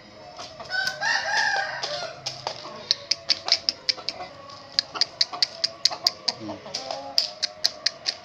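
A young rooster's short attempt at a crow, a wavering call of about a second, a cockerel still learning to crow. From about three seconds in, a quick run of sharp clicks, several a second.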